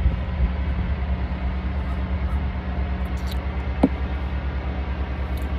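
Steady low rumble of a semi-truck's engine and running gear. A brief rising squeak comes about four seconds in.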